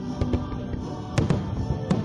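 Music playing for a fireworks show with fireworks bursting over it: a few bangs, the loudest a little past a second in and again near the end.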